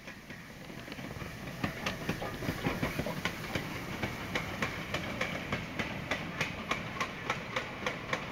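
GWR 28xx class 2-8-0 steam locomotive, running tender first at speed, growing louder as it comes up and passes. Its goods wagons follow, their wheels clattering over the rail joints in a steady rhythm of about two to three clicks a second.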